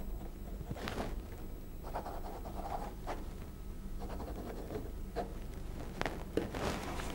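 Pen scratching on paper as a person writes, with a few brief light ticks and taps toward the end.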